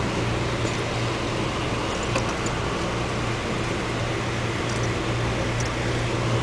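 Steady running noise inside a moving Amtrak passenger car: an even rumble with a low drone, and a few faint clicks now and then.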